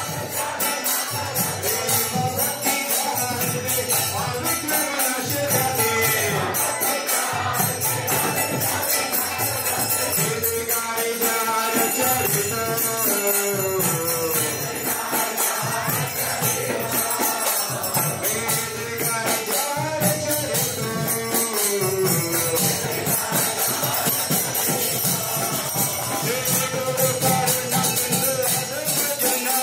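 Devotional group singing (kirtan), voices chanting a melody over the continuous jingling of small hand cymbals.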